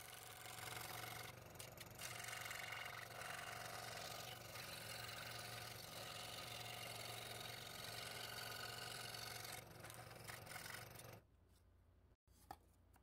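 Scroll saw running, its blade cutting thin 1/8-inch Baltic birch plywood: a steady motor hum with blade noise, which cuts off suddenly about eleven seconds in, followed by a single faint click.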